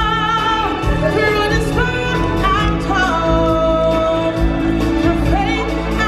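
Music with singing: voices holding long, wavering notes that step to new pitches every second or so over a steady, full accompaniment.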